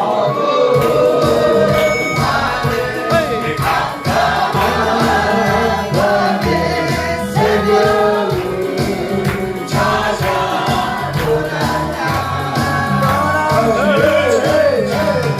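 Gospel song sung together by a group of voices over a band accompaniment with a steady beat.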